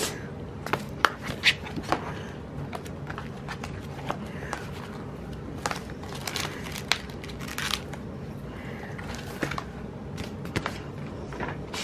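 Sticker sheets and planner pages being handled, with stickers peeled from their backing: scattered small crinkles, peeling sounds and light taps at irregular times.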